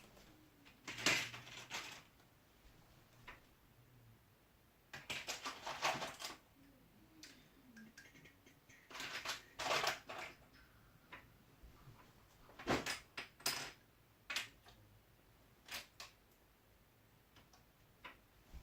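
Someone rummaging for small plastic figures: scattered bursts of clattering and rustling, about half a dozen, with quiet gaps between them.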